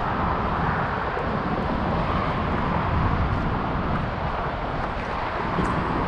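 Steady outdoor background noise: a continuous low rumble with a hiss over it and a few faint ticks, with no single event standing out.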